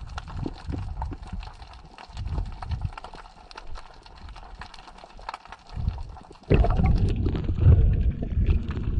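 Underwater water noise on the camera: scattered faint crackling clicks and low thumps, then about six and a half seconds in a sudden loud, low rushing and gurgling of water against the camera.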